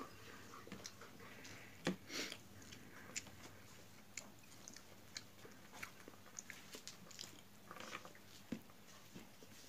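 Faint, scattered wet clicks and smacks of a person eating rice by hand: fingers kneading rice on a plate, and chewing. A few louder smacks come about two seconds in.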